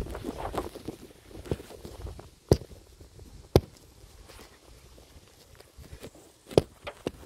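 Handling noise from working on the engine: a burst of light clatter in the first second, then a few separate sharp knocks and clicks of metal tools or parts set down or struck.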